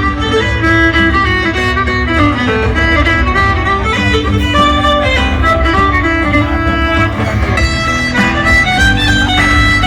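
Loud music with a sustained melody over a steady heavy bass, the soundtrack of a light and sound show.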